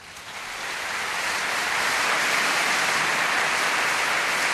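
Applause from a crowd, fading in over about two seconds and then holding steady.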